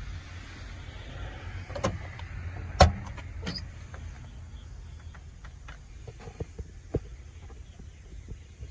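Truck cab door being opened: a latch click and knocks, the loudest about three seconds in, then lighter ticks and taps, over a steady low rumble.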